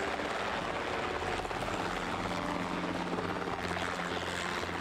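Robinson R22 helicopter running steadily as it lifts off into a low hover: the rapid beat of its main and tail rotors over the air-cooled four-cylinder boxer piston engine.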